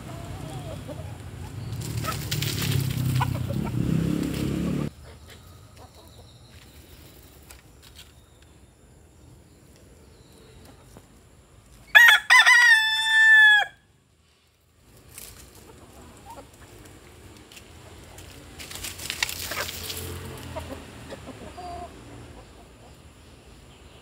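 A rooster crows once, loud and drawn out for about a second and a half, about halfway through. In the first few seconds there is a louder stretch of low rumbling noise that stops abruptly.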